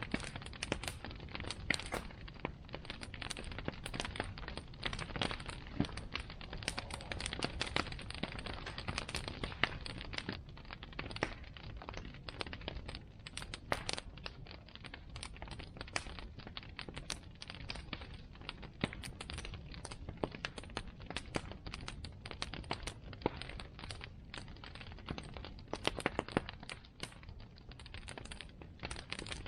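Wood bonfire crackling, with frequent irregular pops and snaps over a steady low rush of the flames.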